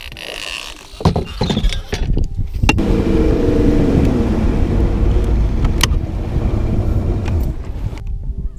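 A boat motor running steadily with a low rumble, after a few knocks in the first seconds; it stops abruptly near the end.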